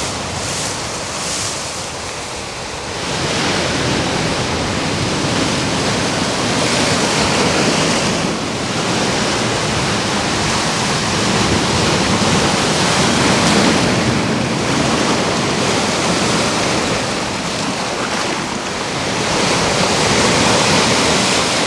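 Ocean waves breaking on a beach: a steady wash of surf that swells and eases every few seconds as the waves come in.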